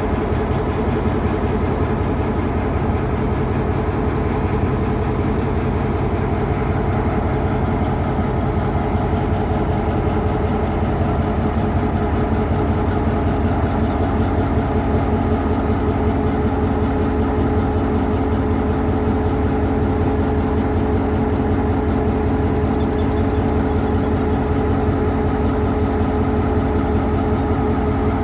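EMD G22 diesel-electric locomotive's 12-cylinder 645 two-stroke diesel engine idling with a steady, low rumble.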